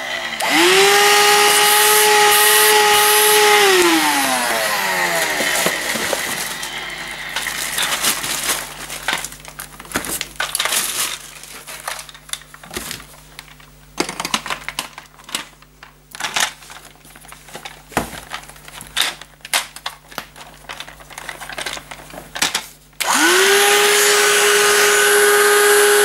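Russell Hobbs cordless stick vacuum motor switched on, running at a steady whine for about three seconds, then winding down once switched off. Plastic clicks, knocks and rustling follow as the vacuum is handled, and near the end the motor is switched on again and runs steadily: a unit bought as faulty, running normally.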